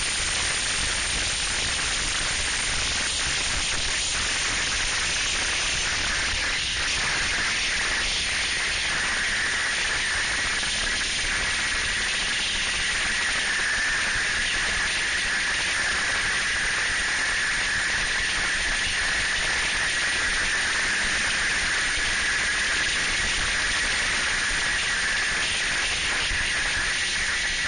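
Steady rushing hiss of wind and a snowmobile running at speed, with a steady high whine coming in about eight seconds in.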